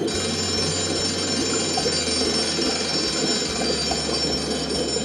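Live-amplified and electronically processed cooking sounds: a steady shimmer of high ringing tones over a dense seething hiss, starting abruptly and holding evenly.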